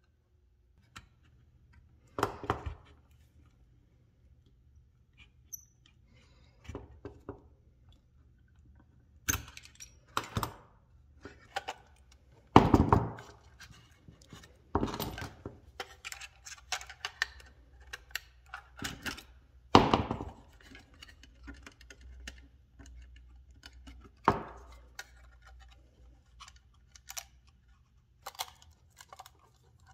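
Irregular clicks, taps and knocks from handling an old flashlight's battery case and picking at it, with a few louder thunks.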